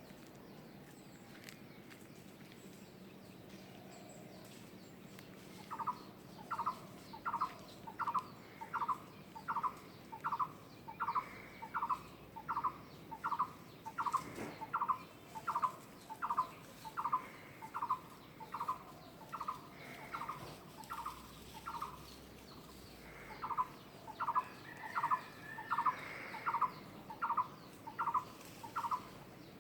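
A bird calling one short note over and over, about three every two seconds, starting some six seconds in and pausing once briefly before going on.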